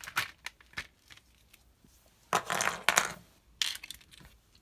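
Small plastic Lego pieces clicking and clattering as they are handled and set down on a table: a few light clicks, then a louder rattling clatter lasting about a second, and a short one near the end.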